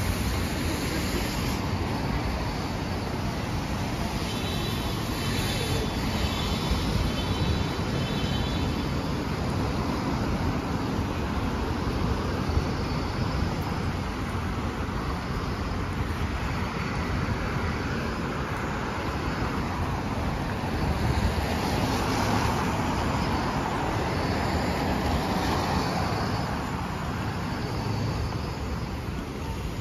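Street traffic on rain-wet roads: a steady wash of tyre hiss and engines, swelling as vehicles pass in the second half.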